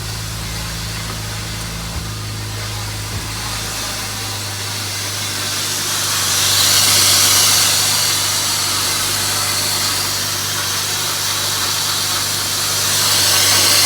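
BMW E36 M3's S52 straight-six engine idling steadily after a jump start, under a loud rushing cooling-fan noise that swells about six seconds in and again near the end.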